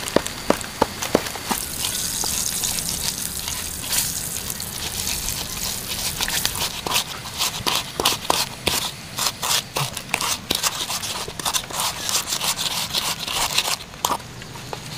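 Chillies and seasonings for sambal gejrot being pounded and ground with a pestle in a mortar. There are a few sharp knocks in the first second and a steady hiss from about 2 to 6 s, then from about 6 s on a quick, uneven run of knocks and scrapes.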